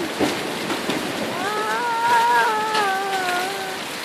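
Heavy rain pouring steadily in a downpour. About a second and a half in, a long wavering pitched call rises a little and then slowly falls over about two seconds.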